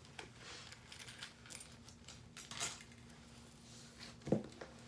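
A bunch of keys jingling and clinking as they are pulled out and handled, with one sharper knock about four seconds in.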